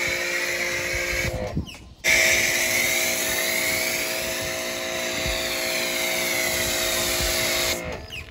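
Pressure washer running with a foam cannon hissing out spray: a steady motor whine under a spray hiss. It cuts out about a second and a half in, starts again half a second later, and stops shortly before the end.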